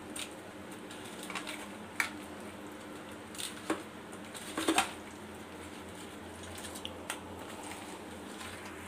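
Raw catla fish pieces being mixed by hand with turmeric and salt in a stainless steel bowl: soft wet squelching and pieces knocking against the steel, with a few sharper clicks around the middle. A faint steady hum runs underneath.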